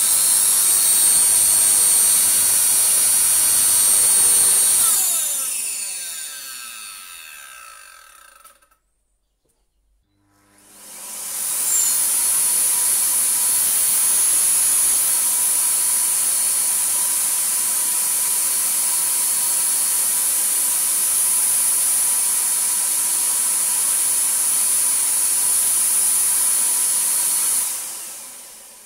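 Miele C3 vacuum cleaner motor running with a high steady whine, switched off about five seconds in and winding down to a stop. It is switched on again about ten seconds in, builds up to full speed, runs steadily, and winds down near the end.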